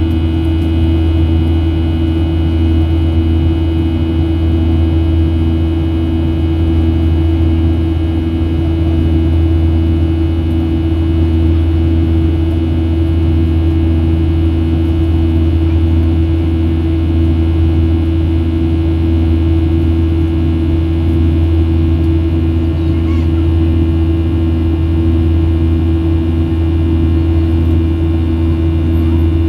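Cabin noise of a Boeing 737-700 in flight, heard from a window seat beside the wing: the CFM56-7B turbofans and the airflow make a steady deep drone with a constant hum. One tone in the hum pulses evenly, about twice a second.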